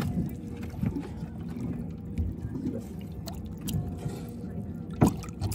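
Low rumbling noise aboard a small boat with water moving in the livewell around a black sea bass, broken by light handling clicks and one sharp knock about five seconds in.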